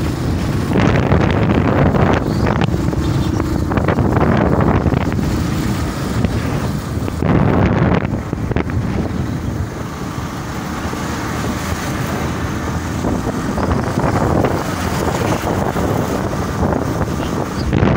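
Wind buffeting the microphone on a moving motorcycle, surging and easing in gusts, over the motorcycle's engine and road noise.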